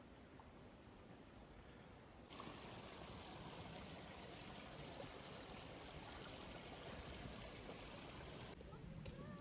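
Faint steady rush of a flowing stream, cutting in suddenly about two seconds in and cutting out again near the end.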